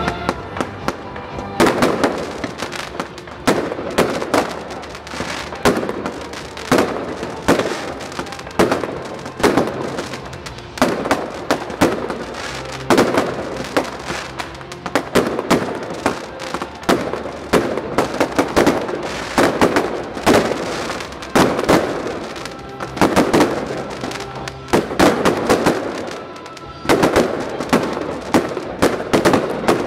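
Fireworks display: aerial shells bursting in a continuous run of sharp bangs, about one or two a second and clustered at times. Music plays underneath.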